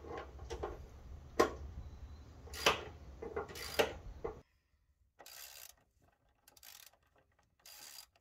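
Hand ratchet wrench clicking in short, uneven runs as it backs hex bolts out of the running-board mounting points under a pickup truck.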